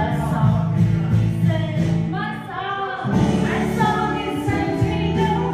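A woman singing karaoke into a microphone over a recorded backing track played through loudspeakers, holding long drawn-out notes.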